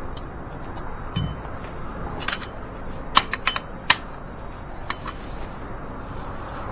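Tableware clinking at a dining table: irregular sharp clicks of chopsticks, plates and glasses over a steady background of eatery noise, with several clicks close together around two seconds in and again from three to four seconds in.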